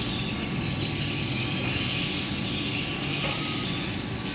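Steady background noise: an even low rumble with a hiss above it.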